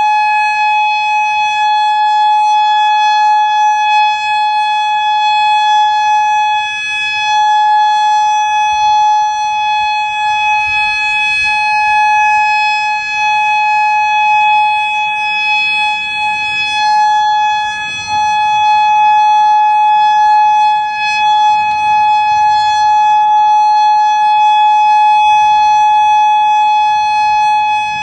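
Federal Modulator 6048 outdoor warning siren sounding the steady Alert signal of a monthly test: one unbroken tone held at a constant pitch, its level dipping slightly now and then.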